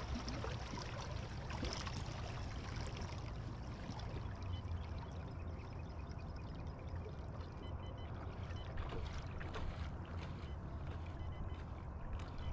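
Water lapping and trickling against a bass boat's hull over a steady low rumble, with a few faint knocks from the deck.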